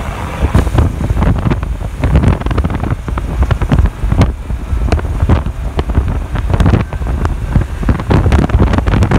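Wind buffeting the phone's microphone through the open cab window of a moving box truck, in loud irregular gusts over a low road and engine rumble. No clear turbo whistle stands out above the wind.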